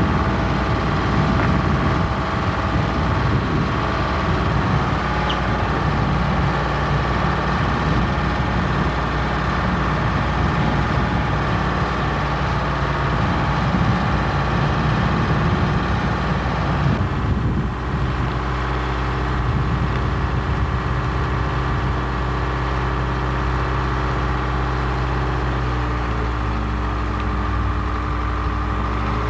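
Crane engine running steadily as it holds and lifts a large timber-frame section, a constant mechanical hum. The sound changes abruptly a little past halfway and then runs on steadily.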